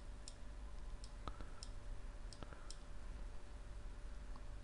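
A few faint, sharp computer mouse clicks, spaced irregularly, over a low steady hum.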